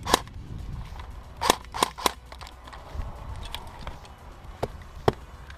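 Airsoft guns firing single shots: sharp cracks, one right at the start, three in quick succession about a second and a half in, fainter ones after, and two more near the end.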